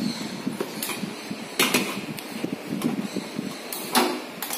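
A few sharp clicks and knocks as a gas stove burner is turned on and lit with a hand-held gas lighter.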